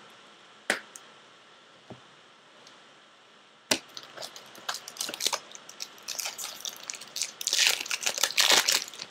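Foil wrapper of a Topps Chrome jumbo card pack being torn open and crinkled. There are a couple of sharp clicks at first, then the crinkling starts almost four seconds in and gets busier toward the end.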